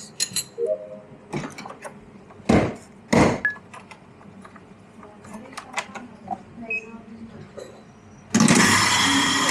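Light clinks and taps of café work, two heavy thumps about two and a half and three seconds in, then near the end the La Marzocco Strada AV espresso machine's steam wand opens with a loud, steady hiss.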